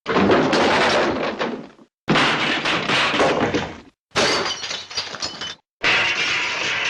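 Slapstick sound-effect crashes of breaking, shattering glass, four in a row with short silences between them, each about one and a half to two seconds long and fading out.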